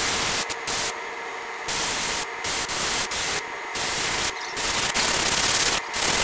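Gravity-feed airbrush spraying paint in a series of short hissing bursts as the trigger is pressed and released. Each burst starts and stops abruptly and lasts from a fraction of a second to over a second, with a fainter steady hiss between them.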